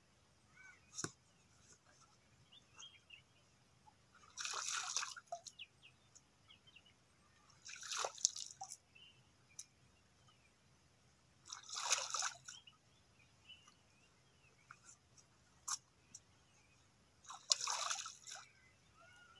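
Lake water scooped and splashed by hand: four short splashes a few seconds apart, with small drips and ticks between them.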